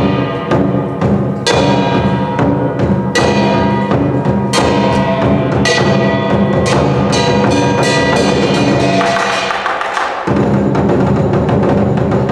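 Chinese lion dance percussion: a big drum beating with clashing cymbals and a ringing gong, heavy accented strikes about every second and a half. Near ten seconds in the drum drops out for a moment, then the full ensemble comes back in.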